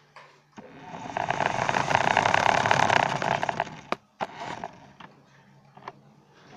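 Remote-control car's small electric motor and gears running in a buzzing burst of about three seconds, then a sharp click and a shorter, weaker burst.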